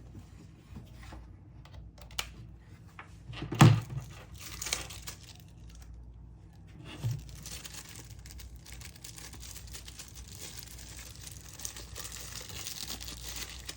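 Paper and packaging rustling and crinkling as the contents of a box are handled, with a sharp knock about three and a half seconds in and a smaller one about seven seconds in.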